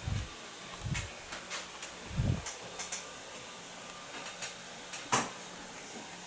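Steady faint hiss and low hum with scattered sharp clicks and three dull low thumps, the thumps in the first two and a half seconds and the loudest click about five seconds in.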